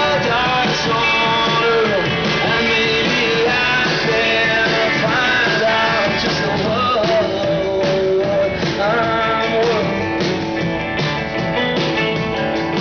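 Live rock band playing a song, with guitars prominent, in a stretch between sung lines.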